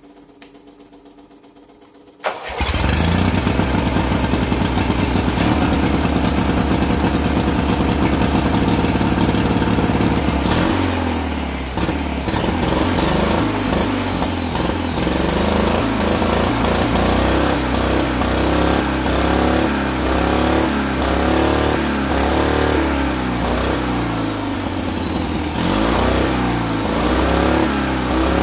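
Turbocharged twin-cylinder Briggs & Stratton lawn tractor engine, fed by a blow-through motorcycle carburetor, starting suddenly about two seconds in and running loud and steady. From about ten seconds in it is revved up and down over and over, with high whistling glides rising and falling with the revs.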